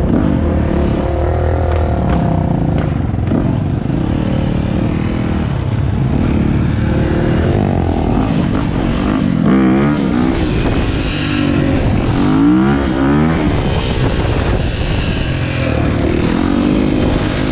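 Dirt bike engine revving up and down over and over while riding, with wind rushing on the microphone.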